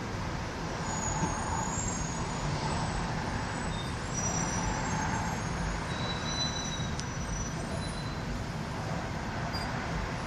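Subway train rolling along the rails: a steady rumble with a few faint, high-pitched squeals from the wheels.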